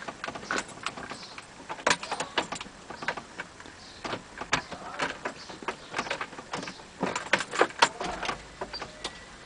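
Keys jangling, with scattered light clicks and knocks from handling.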